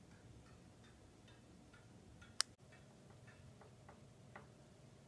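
Near silence with faint, regular ticking, about two ticks a second, and one sharp, much louder click about halfway through.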